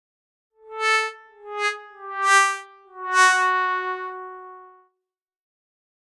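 Comedy 'sad trombone' sound effect: four descending notes, wah-wah-wah-waaah, the last one held longest and fading out, the stock cue for a failure or letdown.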